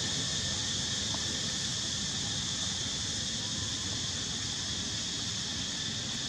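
Steady high-pitched drone of forest insects, with a low wind rumble on the microphone.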